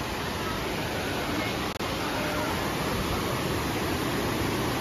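Rushing water of the Kibune River, a fast mountain stream, heard as a steady full rush of water.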